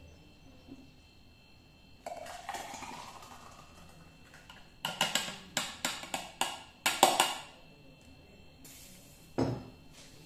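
Hot milk poured from a small steel saucepan into a drinking glass, rising in pitch as the glass fills. Then a quick run of sharp clinks and knocks of a spoon and utensils against glass and pan, and one knock near the end.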